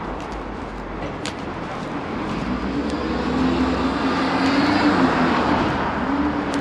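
A motor vehicle passing on the street: its engine and tyre noise builds over a few seconds, is loudest about five seconds in, then eases off.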